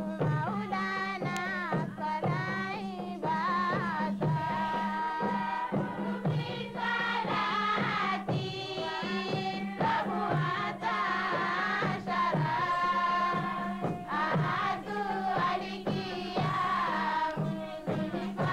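Background music: a song with singing voices over a steady low drone.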